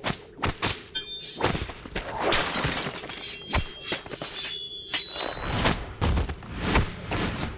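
Dubbed fight sound effects: a rapid run of hits and clashes, several with a short bright ring, over music.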